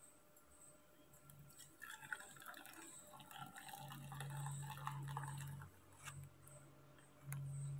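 Hot milk tea poured from a metal pot through a plastic tea strainer, a fluttering trickle and splash of liquid for a few seconds in the middle. A low steady hum comes and goes in the second half.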